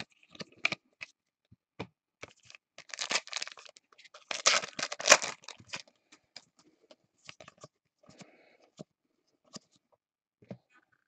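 A trading-card pack wrapper being torn open and crinkled. The loudest tearing and rustling comes from about three to five and a half seconds in, with scattered small rustles and clicks before and after.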